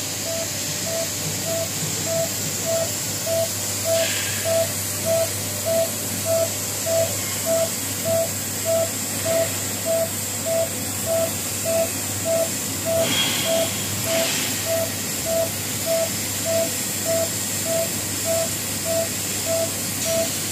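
Automatic pipe-welding machine running an arc weld: a steady electrical hum and arc hiss, with a short tone pulsing evenly about one and a half times a second.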